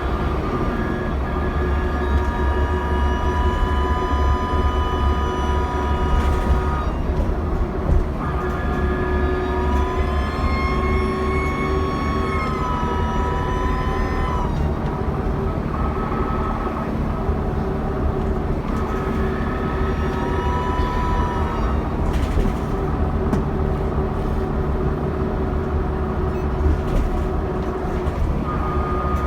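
Dennis Trident Alexander ALX400 double-decker bus under way, its diesel engine giving a steady low rumble with a high turbo whine on top. The whine comes in three spells, the middle one the longest, and bends up and down in pitch.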